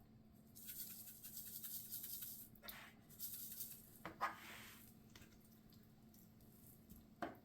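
Dry seasoning rattling out of a spice shaker as it is shaken over raw chicken, in a few soft bursts, with short scrapes and a light knock near the end.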